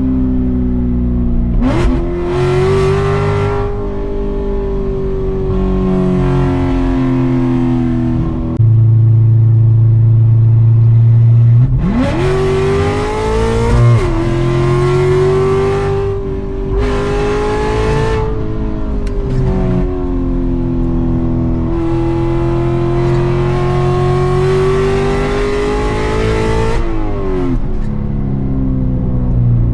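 Chevrolet C7 Corvette's 6.2-litre V8 with a stage 4 camshaft, driven hard with a manual gearbox: engine pitch sweeps up sharply about 2 seconds and 12 seconds in and again near the end, between longer stretches at fairly steady revs, with a loud steady low drone for a few seconds in the middle.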